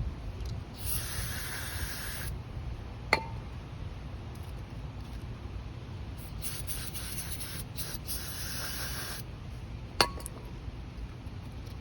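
Aerosol carburetor cleaner sprayed into the generator's carburetor jets in two hissing bursts, the second longer and broken up, to flush out dirt. Two sharp clicks come between and after the sprays.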